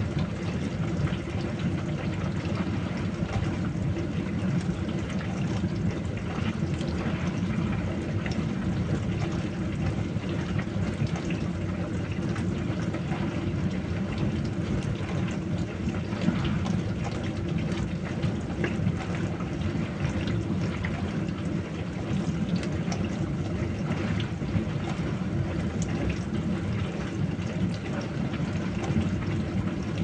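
Dishwasher running: a steady low hum with water spraying and sloshing inside.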